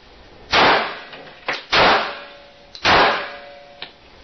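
Three gunshots about a second and a quarter apart, each sharp crack followed by a long echoing tail, as rounds are fired at body armour.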